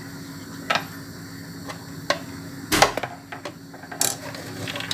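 Small clicks and knocks of parts being handled while the loose cooling fan and its nut are refitted onto a blender's motor shaft, the loudest knock about three seconds in. A steady low hum runs underneath.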